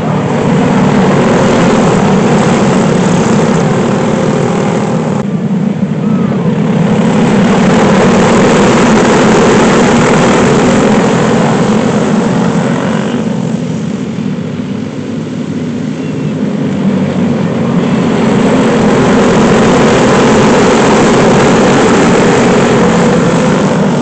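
Racing go-kart engine running hard at close range, with wind rush on the microphone. The note eases off twice, about five seconds in and again around fourteen seconds, and picks back up.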